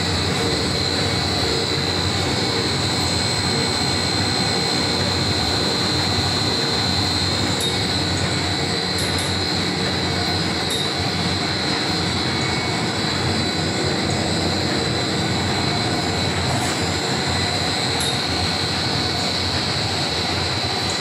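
Biodegradable-bag blown-film extrusion machine running: a steady mechanical drone from its electric motor and extruder drive, with a steady high whine over it.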